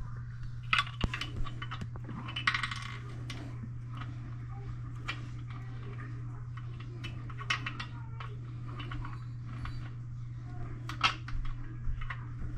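Scattered sharp clicks and light clatter of small hard toilet parts, such as bolt caps and their washers, being handled and fitted, with a short scraping rustle about two and a half seconds in. A steady low hum runs underneath.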